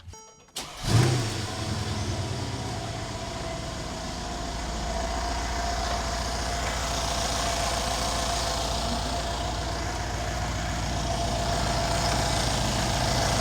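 Mercedes-AMG CLS 63's V8 engine idling steadily. It starts abruptly just under a second in, with a steady low hum and a constant mid-pitched tone.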